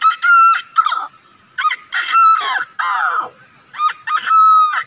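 A man imitating a rooster with his voice: three cock-a-doodle-doo crows in quick succession, each a few short high notes running into a longer held note.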